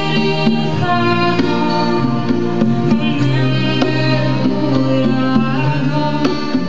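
Live acoustic band playing: acoustic guitar and conga drums keeping a steady beat, with a sustained melody line over them.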